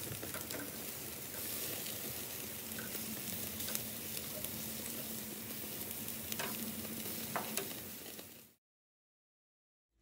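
Thin pork loin chops sizzling steadily on a grill over high heat, with a few sharp clicks along the way. The sizzle cuts off suddenly about eight and a half seconds in.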